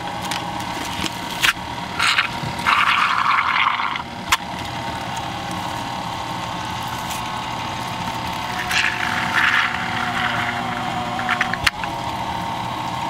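Stand mixer's food-grinder attachment running steadily while baby clams are pushed through it with the plunger. The grinding gets louder and harsher for a stretch about two to four seconds in and again around nine seconds.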